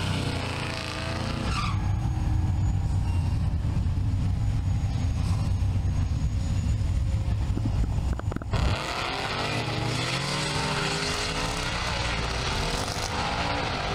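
Drag cars' engines. First a deep, steady rumble of engines running in the staging lanes; then, after an abrupt change about eight seconds in, engine notes rising and falling as cars run down the strip.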